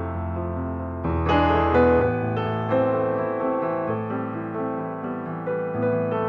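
Background piano music: gentle sustained notes and chords, with new notes entering about every second or so.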